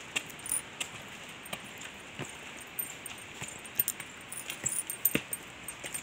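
Footsteps on a paved path scattered with dry leaves: light, uneven taps about two a second, with a faint metallic jingle.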